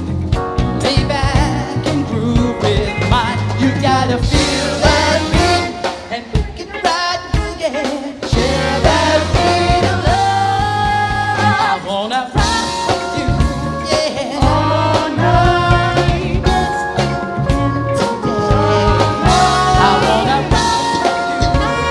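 Live band playing an upbeat song: a man singing lead over drum kit, electric guitars, saxophone and tambourine.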